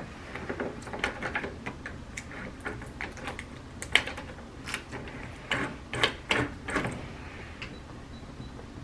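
Irregular light clicks and knocks of hand work on a door lock and its fittings, with a few louder knocks about four to seven seconds in.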